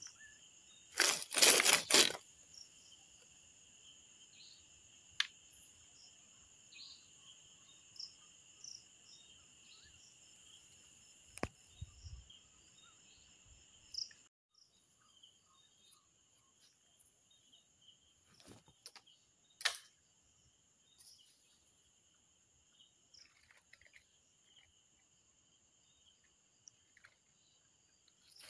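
Crickets trilling steadily at night, two high-pitched steady tones over faint scattered clicks and rustles. A couple of loud, brief noise bursts come about one to two seconds in, and a single sharp click comes about two-thirds of the way through.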